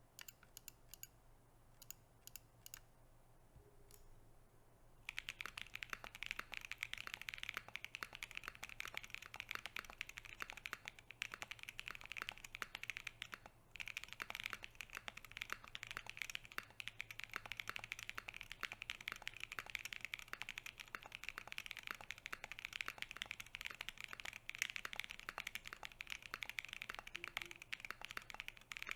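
Mechanical keyboard typing on Harimau tactile switches, lubed with Krytox 205g0 and filmed, in an aluminium case with an FR4 plate. A few separate key presses come first, then fast continuous typing from about five seconds in, with one brief pause midway.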